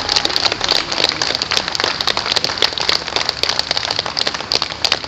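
Audience applauding: dense clapping from many hands, easing slightly toward the end.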